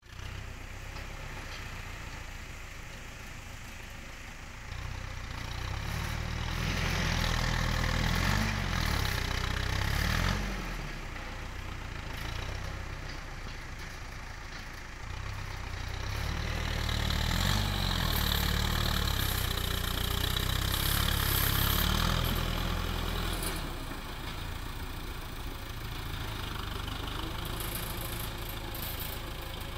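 Farm tractor's diesel engine working a front-mounted dozer blade to push and spread loose dirt. The engine runs steadily and rises louder twice as it takes load, about five to ten seconds in and again from about sixteen to twenty-three seconds, then drops back to a lower run between pushes.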